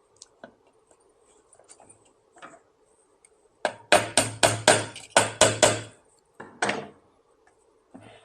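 A quick run of about eight sharp taps in two seconds, then one more, as plastic bird spikes are knocked into tight holes on a Davis Vantage Pro2 weather station's sensor housing. A few faint small clicks come before them.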